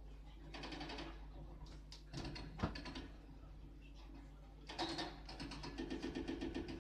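JCB backhoe loader demolishing a brick wall: its diesel engine runs steadily under the knocks and clatter of the arm working at the masonry, with a sharp knock about two and a half seconds in and a burst of clattering near five seconds. Toward the end the engine gets louder with a fast, even throb.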